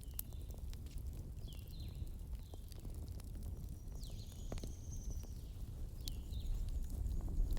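Wood campfire burning with scattered crackles and pops over a low rumble, while birds give short chirps now and then, one longer high call a little past the middle.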